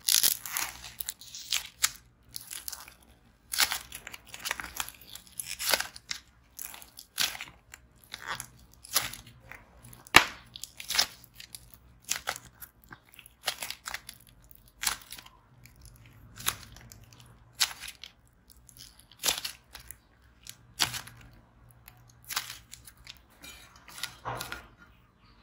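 Clay fake cake roll being squeezed and crushed by hand, the clay cracking and crunching in irregular clusters of sharp crackles every second or so.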